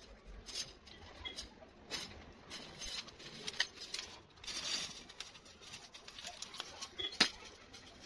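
Wooden perch being fitted into a wire bird cage: irregular light scraping and clicking of wood against the cage wires, with a sharper click about seven seconds in.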